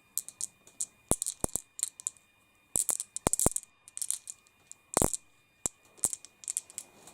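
Polished tumblestone crystals clinking against one another and a tabletop: scattered sharp, crisp clicks in irregular clusters, the loudest about five seconds in.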